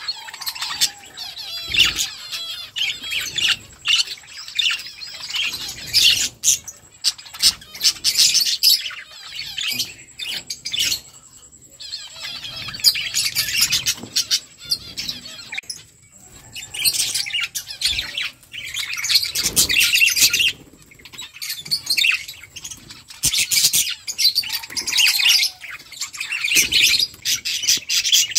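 A flock of budgerigars chirping and chattering, rapid warbling calls overlapping and coming in spells with short lulls.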